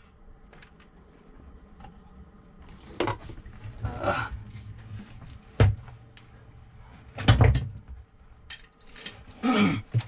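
Plastic bilge pump and float switch parts being handled and set down in a fibreglass bilge: scattered knocks and rustles, with one sharp knock about halfway through and a quick cluster of knocks shortly after.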